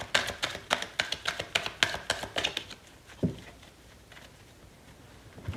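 A deck of cards being shuffled by hand: a quick run of snapping, slapping card sounds for about three seconds, then one soft thump, then quiet.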